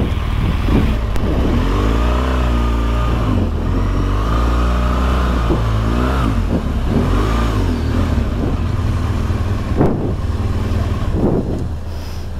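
Motorcycle engine running and being revved several times, its pitch rising and falling, then settling to a steadier, quieter run in the last few seconds.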